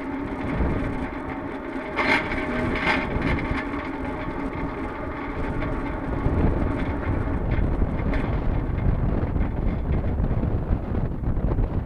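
Liebherr tower crane slewing, heard from a camera on its jib: a steady mechanical hum of the turning crane under wind rushing over the microphone. Two sharp knocks come about two and three seconds in, and the low wind rumble grows stronger in the second half.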